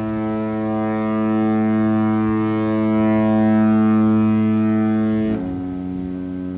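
Cruise ship's horn sounding one long, loud held note, switching abruptly to a different note about five seconds in.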